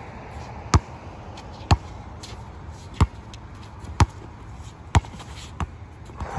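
Basketball being dribbled on a hard outdoor court, one sharp bounce about every second.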